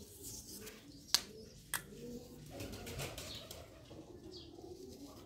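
Faint rustling of hands winding thread-seal (Teflon) tape onto a plastic pipe's threads and fitting an elbow onto it, with two sharp clicks, about a second and a second and three-quarters in.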